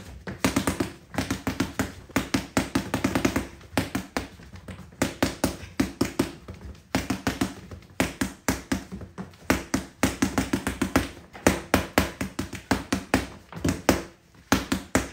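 Paint-covered boxing gloves punching a sheet of paper on a wall: quick runs of soft slapping impacts, several a second, broken by short pauses.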